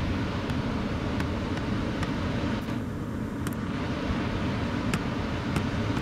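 Wind rumbling on the microphone as a steady low noise, with a few faint clicks scattered through.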